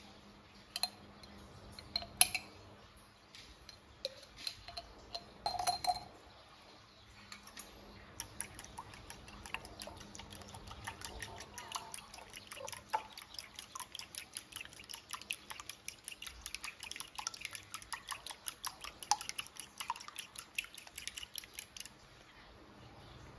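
A few separate clinks of a spoon on a glass jar and ceramic bowl, then from about eight seconds in a fork stirring fast in a ceramic bowl of oily liquid: a quick run of light clinks and liquid sloshing as the chili paste is stirred to dissolve. The stirring stops near the end.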